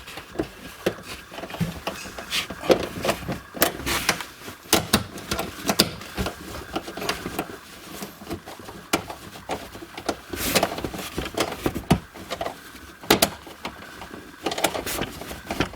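Irregular clicks, taps and knocks of hands working on a car's tail light assembly, handling plastic parts and fasteners.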